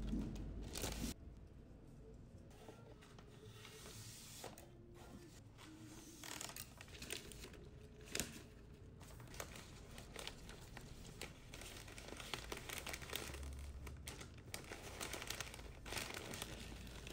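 Florist's wrapping paper and cellophane rustling and crinkling as a bouquet is wrapped by hand, in irregular crackles with a louder crinkle near the start and another about halfway.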